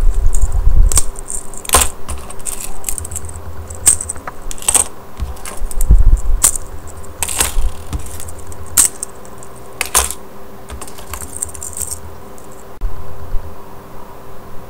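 Mini metal keychain folding knives being handled: their split key rings jangle and the metal parts clink and click in scattered sharp ticks, over a low, uneven rumble of handling noise.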